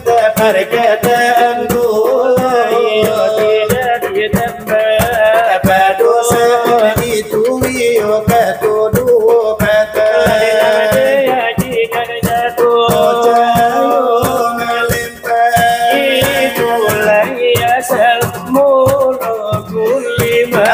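Salawat dulang: men chanting a devotional song in a melismatic style while beating fast, dense rhythms with their fingers on large brass trays (dulang).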